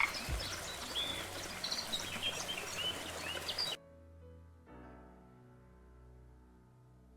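A nature-ambience sound effect of birds chirping over a steady rushing noise. It cuts off abruptly about three and a half seconds in, and soft music with sustained notes follows at a lower level.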